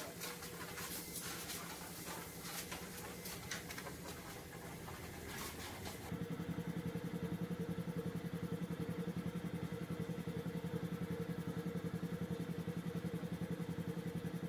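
An air compressor running steadily, with a low hum and a fast regular pulse, from about six seconds in. Before that, a noisier stretch with short hissing bursts.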